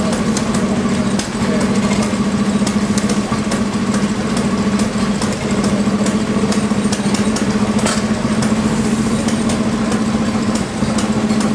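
Amanco 8 HP Mule Team hit-and-miss petrol stationary engine running, its flywheels turning, with scattered sharp clicks over a steady low hum.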